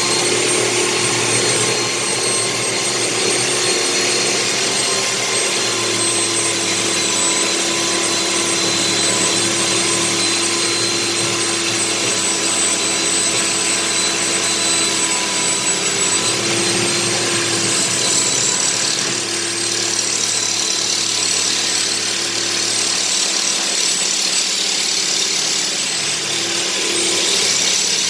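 Electric power tool running continuously under load with a steady high whine that sags slightly in pitch a few times, consistent with cutting open a washing machine's welded drum.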